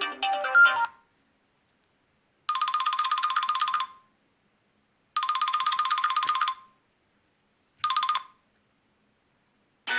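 Nokia C6-00 mobile phone playing a trilling, telephone-style ringtone: two rings of about a second and a half each, then a short third ring cut off. Before it, the end of a musical ringtone stops about a second in.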